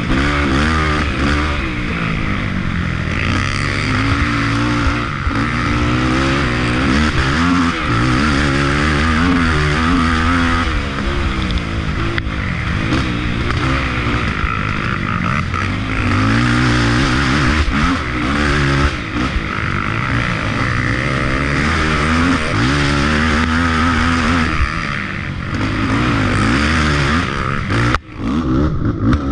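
Off-road race engine heard on board, revving up and down over and over as the rider works the throttle along a woods trail, with steady wind and chassis hiss. It cuts out for an instant about a second before the end, then picks up again.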